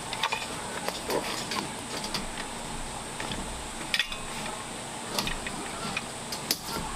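Scattered light clicks and knocks, about a dozen, of small objects being handled, over a steady faint hum.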